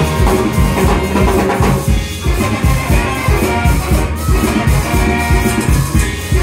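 Live band playing an upbeat groove: trombone and saxophones play over a drum kit with a steady low beat, with a metal shaker keeping time.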